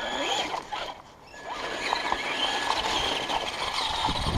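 Traxxas Slash 2WD RC truck's electric motor and drivetrain running at low throttle, with a thin steady high whine over gear and tyre noise, getting louder and rougher near the end as it speeds up.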